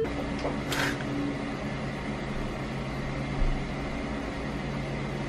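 A machine running steadily: a low, even hum over a wash of noise, with one brief sharp hiss about a second in.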